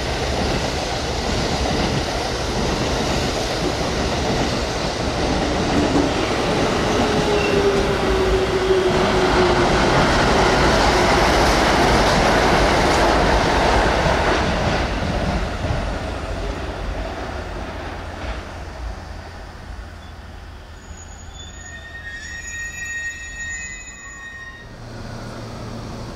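JR Central 313 series electric train running past at close range: loud wheel-on-rail and running noise, with a motor whine that falls in pitch about seven seconds in as the train slows. The noise then fades, and near the end the wheels give a high squeal of several tones.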